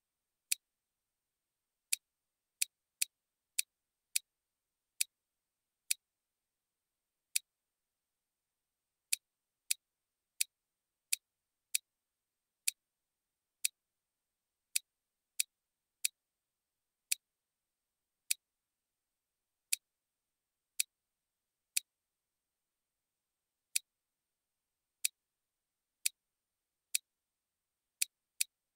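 Computer mouse button clicking about thirty times at uneven spacing, sometimes two or three clicks a second and sometimes a second or two apart. Each click is short and sharp.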